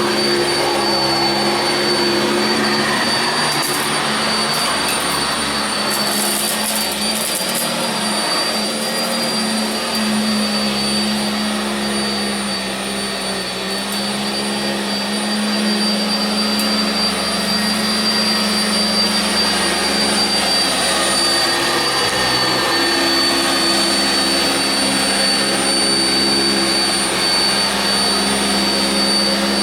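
Sanitaire SC679J upright vacuum cleaner running steadily over carpet, with a constant high-pitched motor whine over a low hum; it eases off slightly for a moment about halfway through.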